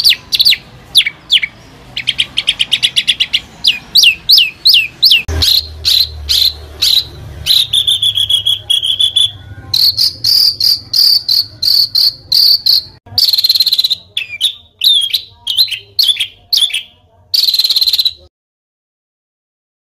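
Songbird song, fast and harsh: rapid runs of down-slurred whistled notes and trills mixed with long buzzing phrases. It stops abruptly near the end.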